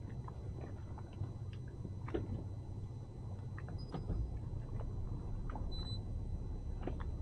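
A steady low rumble under scattered light knocks and clicks from a line being hauled and footsteps on a fibreglass boat deck.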